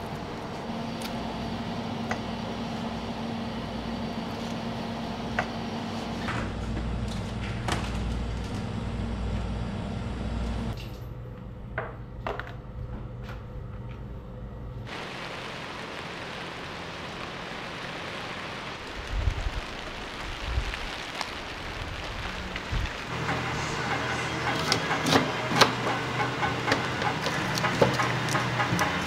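Kitchen prep room sound: a steady low hum with scattered clicks and knocks of knife and handling work, busier near the end. The background changes abruptly a few times.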